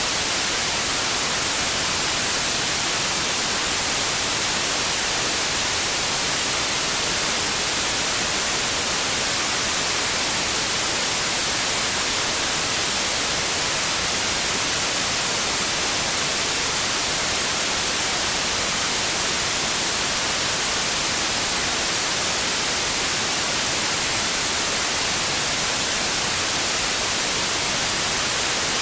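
Steady, unchanging white noise: an even hiss with its energy strongest in the upper frequencies, with no rhythm or events in it.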